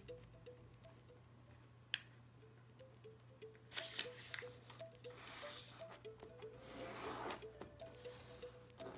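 A square of origami paper being folded and creased by hand, rustling and crinkling as fingers press and run along the fold, mostly in the second half, with a single tap about two seconds in. Soft background music with a repeating melody plays underneath.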